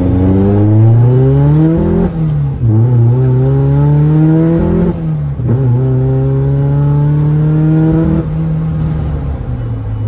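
Car engine accelerating hard through the gears: the revs climb, drop at upshifts about two and five seconds in, climb again, and fall away as the throttle closes about eight seconds in. A faint high whine rises and falls with the revs.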